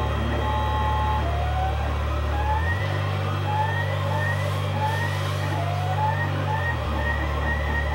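Stepper motors of an XYZprinting da Vinci Pro 1.0 3D printer driving the print head while it prints. A steady low motor hum changes pitch about three seconds in and again near the end, with short rising whirrs about once or twice a second as the head speeds up on each move.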